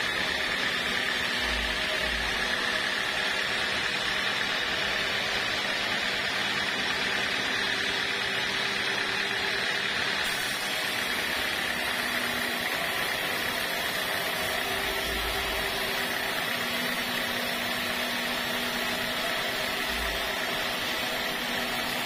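Band sawmill blade ripping a squared waru gombong log lengthwise into planks, cutting steadily with a constant high tone over the hiss of the cut.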